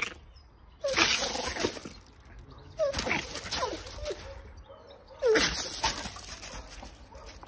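Animal whimpering cries in three short bursts, each a falling squeak over a hissy rush.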